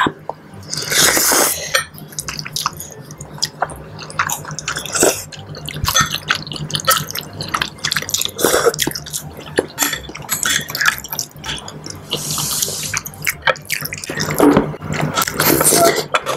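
Close-miked eating: saucy seblak noodles slurped, with wet chewing, lip smacks and many short clicks. Longer slurps come about a second in and twice near the end.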